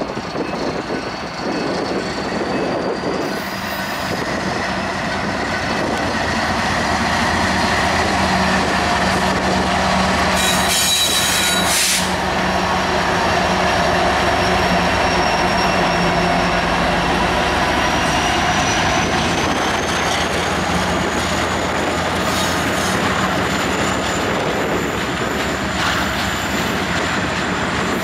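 Freight train passing close by: Canadian Pacific and Kansas City Southern diesel locomotives run past with a steady low engine drone, then ballast hopper cars roll by. A thin high squeal of wheels on the rails climbs slowly in pitch.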